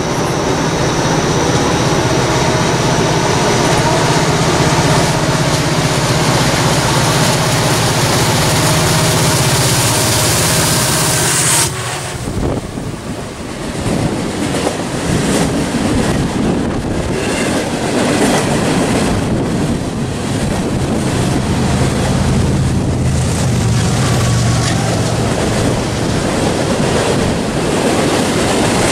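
Freight train passing close below: first the diesel locomotives approaching with a steady engine drone, which drops away suddenly about twelve seconds in as they pass under; then a long string of freight cars rolling by, wheels running on the rails.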